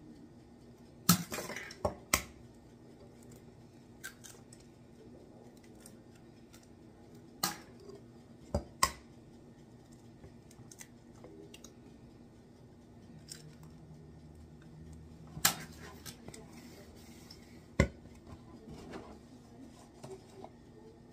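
Raw eggs being cracked one after another: sharp taps of eggshells, often in quick pairs a few seconds apart, with faint crackling of shell between.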